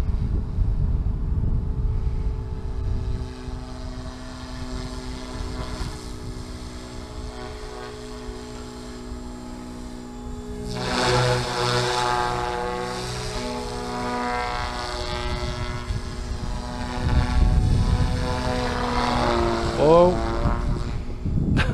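SAB Goblin 380 electric RC helicopter flying overhead with a steady whine from its motor and rotor blades. The whine grows louder about halfway through, and its pitch rises sharply near the end. A low rumble is heard at the start and again later.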